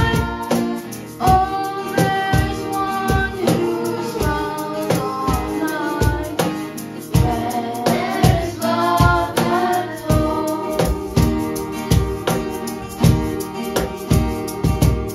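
Children singing a song to an acoustic guitar strummed in a steady rhythm. The singing ends about ten seconds in and the guitar plays on.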